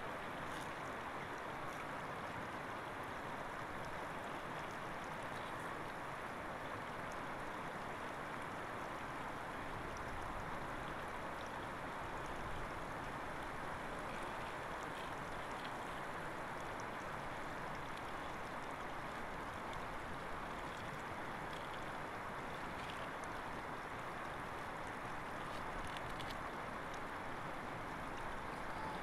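Shallow mountain river rushing over stones: a steady, unbroken noise of running water.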